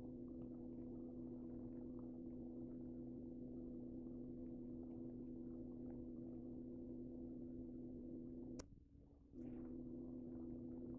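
Faint, steady low hum with a few faint ticks. It cuts out for under a second about eight and a half seconds in, the gap starting with a sharp click.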